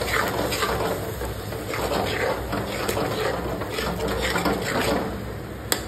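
Metal spoon stirring wet masala gravy in a metal kadhai: repeated wet sloshing and scraping strokes about twice a second, with one sharp click near the end.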